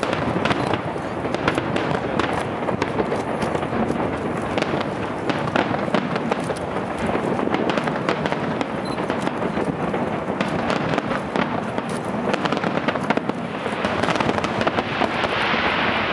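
Aerial fireworks display: a dense, continuous run of bangs and crackling from bursting shells. The crackle grows denser and hissier over the last few seconds.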